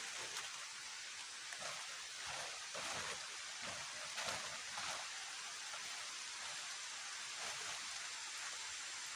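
Heavy rain falling, a steady hiss, with a few irregular louder rustles or patters between about two and five seconds in.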